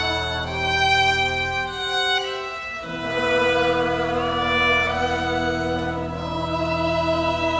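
Solo violin playing a slow, held melody over sustained pipe organ chords. The organ's low bass notes drop out about two seconds in and return about a second later.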